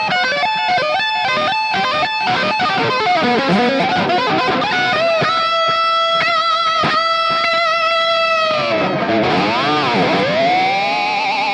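Electric guitar played through a Mooer GE200 multi-effects amp modeler: fast lead runs of single notes, then long held notes with vibrato. Near the end the pitch swoops down and back up before settling on a held note that slowly rises.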